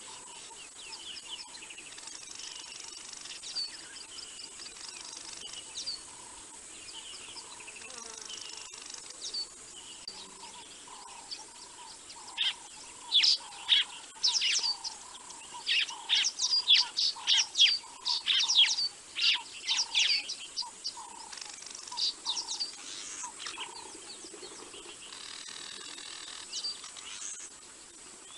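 Wild birds calling: scattered chirps, then a loud run of sharp, quick chirps through the middle. Under them sits a soft lower note repeated about twice a second, and a thin steady high tone.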